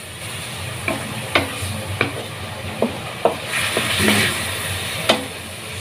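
Chicken pieces and chicken livers sizzling as they sauté in a steel wok, stirred with a wooden spatula that knocks and scrapes against the pan about seven times. The sizzle swells for about a second past the middle.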